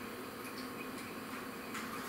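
Quiet room tone, a steady hiss and faint hum, with a few faint, irregular ticks.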